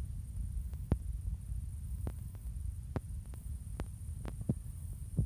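Low steady background hum and rumble, with faint clicks every second or so.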